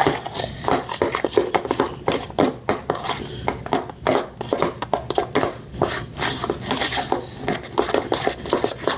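Metal spoon stirring white glue and shaving cream in a bowl, knocking and scraping against the bowl in quick, irregular strokes.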